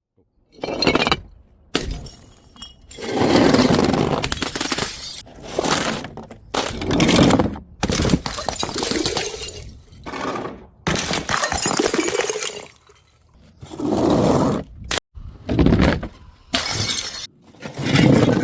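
Glass bottles smashing on stairs, about a dozen crashes one after another. Each breaks off abruptly before the next begins.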